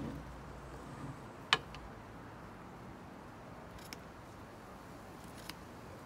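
Steel bonsai cutters snipping into a young kukui (candlenut) trunk: one sharp snip about a second and a half in, then two fainter clicks of the blades.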